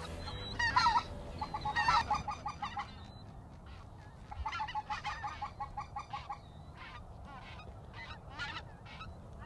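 Greater white-fronted geese (specklebellies) calling: bursts of high yelping notes, some in quick even runs, loudest in the first two seconds and fainter after.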